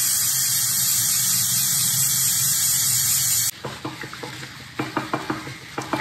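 Aerosol air filter oil spraying onto a foam dirt-bike air filter in a steady hiss that cuts off suddenly about three and a half seconds in. Then rubber-gloved hands squeeze and massage the oily foam, making quieter, irregular wet squishing clicks.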